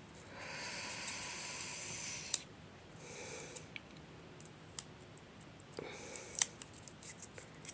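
Hands working at the wrapping of a sticker roll: a steady rustle for about two seconds, then scattered small clicks and ticks of plastic and paper, the sharpest about six seconds in.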